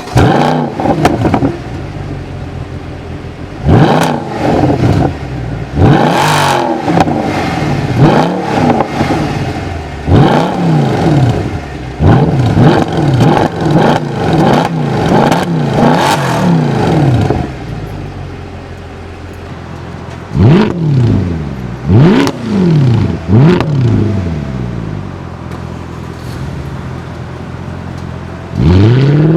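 Mercedes-Benz E63 AMG V8 through an X-pipe exhaust, revved again and again in quick blips that rise and fall back to idle, with crackles and pops as the revs drop. About two-thirds of the way through it settles to idle, then it is blipped three more times and held at idle again before a longer rev near the end.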